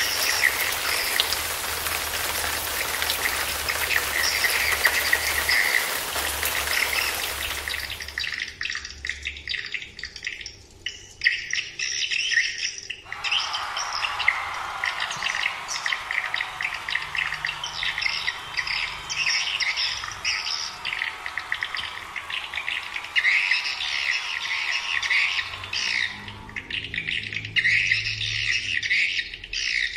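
Swiftlet-calling track played through an Audax AX-6 waterproof outdoor calling speaker: dense, rapid high-pitched twittering chirps throughout. A steady hiss sits under it for the first eight seconds.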